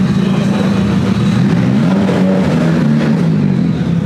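Car engine running with a deep, steady note that rises and then falls slightly about two seconds in, as if revved or pulling away.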